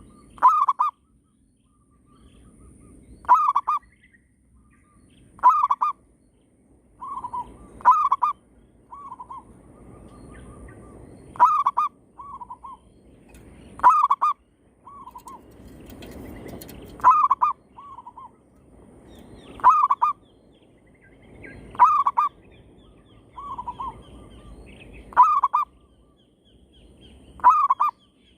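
Zebra doves (perkutut) cooing and answering each other: a loud phrase about every two and a half seconds, with fainter, shorter coos from a second bird in between.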